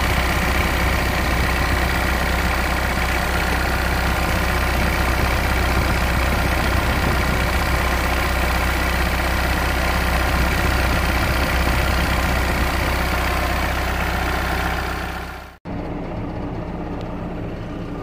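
Yanmar YT347 tractor's diesel engine running steadily, heard up close in the open engine bay. Near the end it cuts abruptly to the same engine heard quieter from inside the cab.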